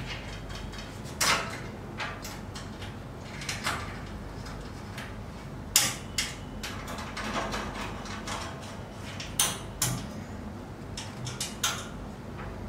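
Irregular clicks and knocks as hardware and parts are handled and fitted on a CNC router's aluminium and steel frame during leg-kit assembly, with a few sharper knocks among them.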